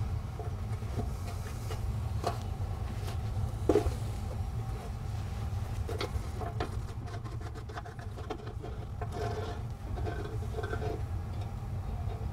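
Small metal clicks and taps as the fuel taps are handled and unscrewed from a motorcycle fuel tank, one sharper click a little before the midpoint, over a steady low hum.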